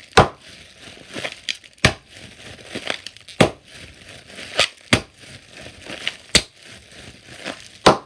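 Bubble wrap bubbles being popped by hand, about seven sharp pops a second or so apart, with plastic crinkling between them.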